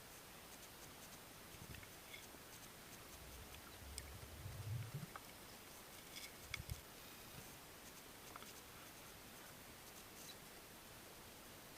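Very faint ambience with scattered small clicks and a few soft low thumps, loudest about four to five seconds in and again shortly after six seconds.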